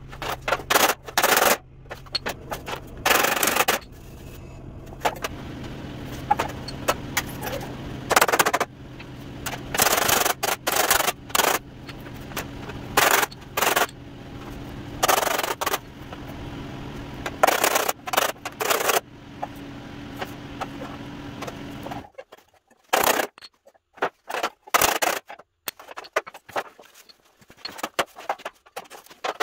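Hand hammer striking the sheet-steel panel of a 1948 GMC pickup tailgate, sharp metallic blows in quick irregular runs, straightening the bent metal. A steady low hum runs underneath and stops suddenly about three-quarters of the way through.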